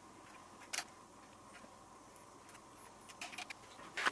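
A few sharp metallic clicks of small hardware and parts being handled at a motorcycle handlebar: the sharpest right at the start, another under a second in, and a cluster of lighter ticks near the end, over a quiet room hiss with a faint steady tone.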